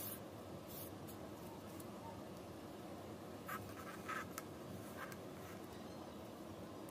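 Paper sheets being handled and slid on a board: a few short rustles and taps, the loudest cluster about three and a half to four and a half seconds in, over a faint steady hiss.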